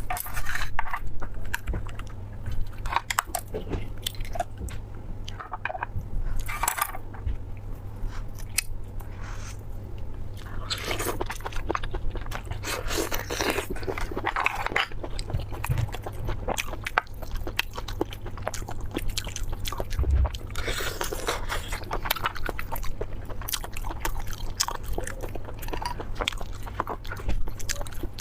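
A person eating close to the microphone: repeated bites and chewing with sharp crunches, over a steady low hum.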